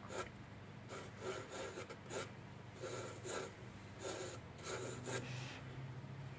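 Graphite pencil sketching on sketchbook paper: a dozen or so short, scratchy strokes at an uneven pace.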